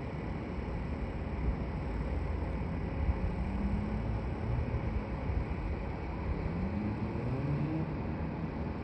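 Low, steady rumble of road traffic, with a vehicle engine rising in pitch twice, about a third of the way in and again near the end.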